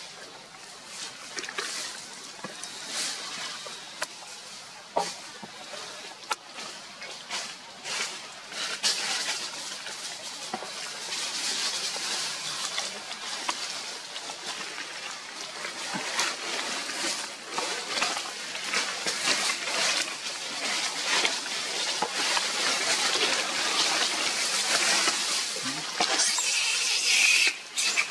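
Macaque eating mango up close: wet smacking and chewing with a dense crackle of small clicks.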